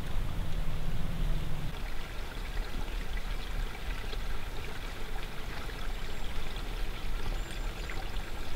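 Water trickling and flowing steadily. A low rumble underlies the first couple of seconds, then stops.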